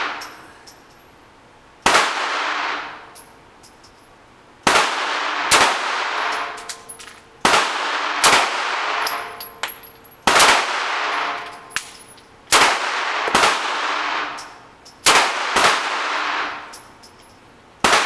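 HK VP9 9mm pistol firing 115-grain handloads: about ten shots at uneven gaps, some in quick pairs, each followed by a long echoing decay off the walls of an indoor range.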